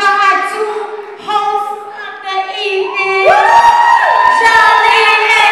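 Voices singing, without instruments at first. A little past halfway, a loud held high note comes in and stays, with faint low thumps under it.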